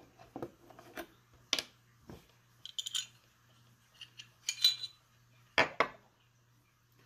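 Scattered clicks and light metallic clinks of a Glock 19 pistol's slide and parts being handled and set down during field stripping, a few sharper knocks near the end.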